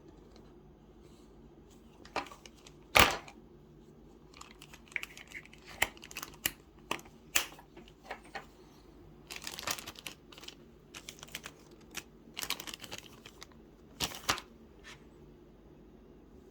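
Packaging and parts being handled: scattered clicks and taps with short bursts of crinkling, the loudest a sharp knock about three seconds in.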